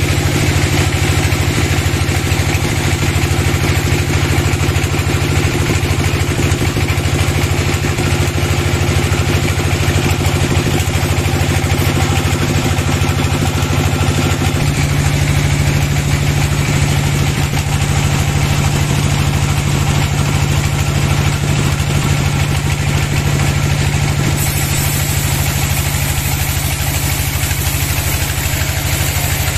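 Band sawmill running steadily, its blade cutting lengthwise through a long log: a constant low machine hum with a broad hiss of the cut over it.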